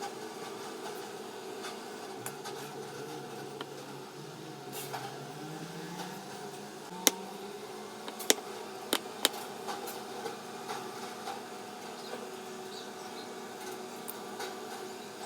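A steady mechanical hum of a small electric motor, its pitch drifting slowly upward early on, with a few sharp clicks or knocks about halfway through.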